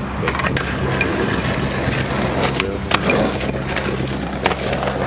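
Skateboard wheels rolling over pavement, with a few sharp clacks of the board, the loudest about three seconds in. A hip hop beat plays underneath.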